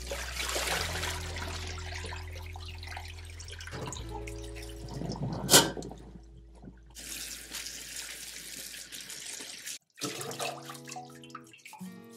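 Water running and splashing in a stainless steel sink as cooked noodles are rinsed in a mesh colander sitting in a pot of water, and the rinse water is poured off. A single sharp metal clink about five and a half seconds in.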